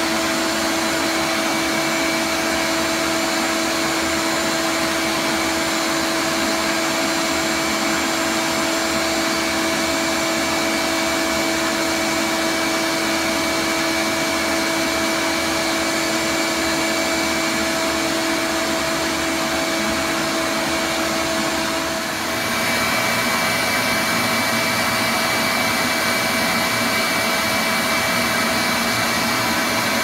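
Bee vacuum running steadily as its hose sucks live bees off the comb in a wall cavity, a continuous motor whine. About three quarters of the way through, its note briefly drops and then settles at a different pitch.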